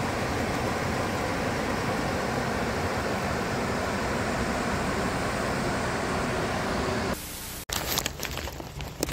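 Steady rushing of a shallow rocky stream running over small rapids. About seven seconds in it cuts off abruptly, followed by a quieter stretch with a few sharp clicks and knocks.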